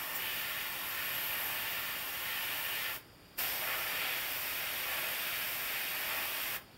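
Airbrush spraying paint: a steady hiss of air through the nozzle. It stops briefly about three seconds in and again near the end as the trigger is let off, then starts again.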